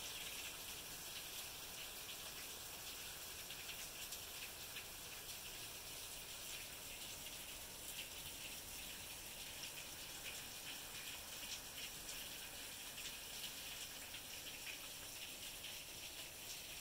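Rain pouring down and splashing on concrete patio steps and pavers: a steady hiss of many small drop impacts.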